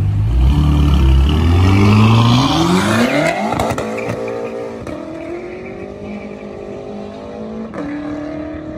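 BMW M6's twin-turbo V8 accelerating hard from a pull-away, its engine note climbing for about three seconds, then carrying on more quietly as the car drives off into the distance.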